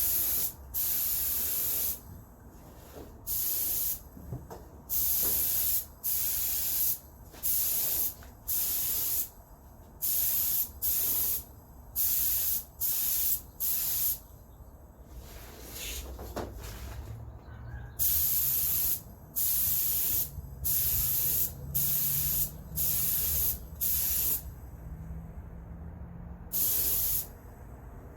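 Cerakote coating being sprayed onto tail lights in about twenty short hissing bursts, each under a second, with brief pauses between passes and a few longer breaks.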